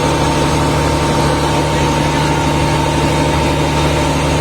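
Fishing boat's inboard engine running steadily at a constant speed, with a broad hiss of wind and sea over it.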